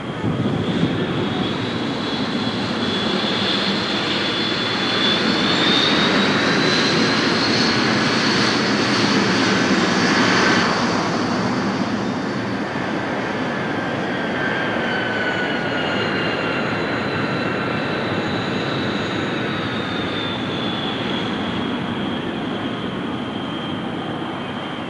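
Jet engines of a Douglas DC-8 jetliner running. The high whine rises in pitch and grows louder about five seconds in, then slowly falls in pitch over the second half.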